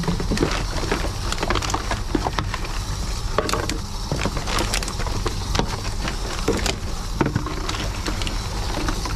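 TOMRA reverse vending machine taking in plastic bottles one after another: a steady low motor hum under irregular clicks, clunks and crinkling plastic as each bottle is pushed into the intake and carried off by the mechanism.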